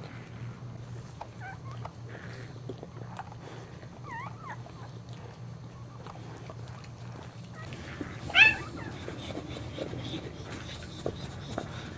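Newborn Boxer puppy squeaking: a few short high squeaks around four seconds in and one louder squeal a little past eight seconds, over a steady low hum.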